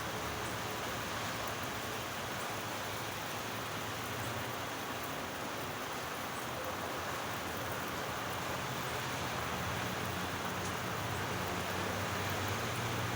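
Steady rain falling, an even hiss with a few faint drop ticks. A low hum grows louder near the end.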